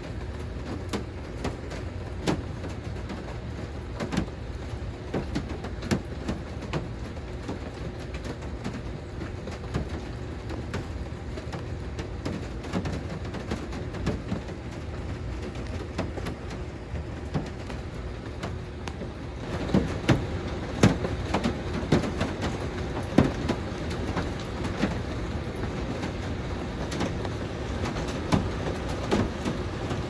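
Rain and hail hitting a camper's roof: a steady patter with irregular sharp hits, which grow heavier and louder about two-thirds of the way through.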